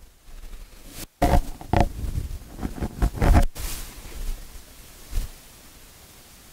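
Clothing rustling and body shifting on a yoga mat as a person lowers into child's pose, with a few loud short bursts in the first half, then a faint steady hiss.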